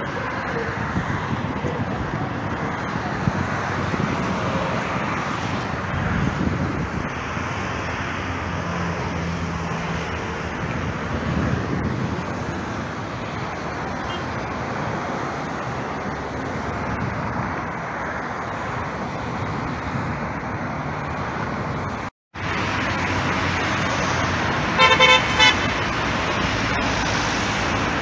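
Steady noise of road traffic passing close by, which briefly drops out about two-thirds through. Near the end a car horn gives three short toots.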